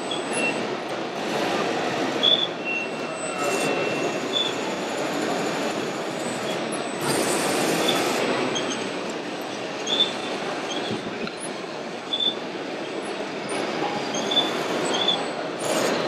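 Steady rumbling hubbub of a busy exhibition hall, with scattered small high squeaks and chirps and two short hisses, about a third and half of the way through.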